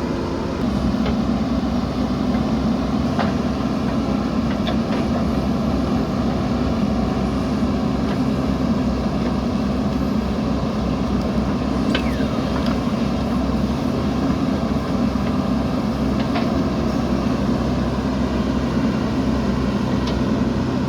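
Diesel engine of a JCB 3DX ECO backhoe loader running steadily under load while digging, picking up about a second in, with a few short sharp knocks from the working machine scattered through.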